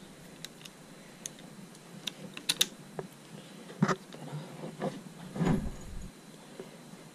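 Light clicks and taps of small metal parts as an aluminium brake lever and its spacer are handled and fitted at the handlebar lever perch. There is a quick run of clicks about two and a half seconds in, then a few louder knocks around four and five seconds in.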